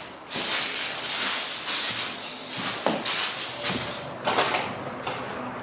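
Scraping and rustling as someone pushes through a doorway overgrown with dry branches and debris. A long scrape starts just after the beginning and lasts about two seconds, followed by several shorter rustles.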